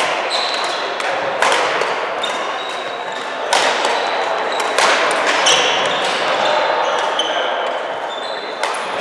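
Badminton rackets striking a shuttlecock in a doubles rally: sharp cracks about one to two seconds apart, echoing in a large hall. Between the hits, sports shoes squeak briefly on the wooden court floor.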